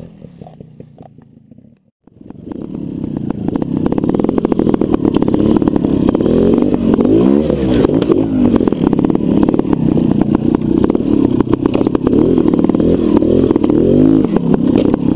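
Trials motorcycle engine heard close up from an onboard camera, revving up and down in short repeated bursts as the bike is ridden over rocks in a trial section. A quieter stretch breaks off about two seconds in, before the engine comes in.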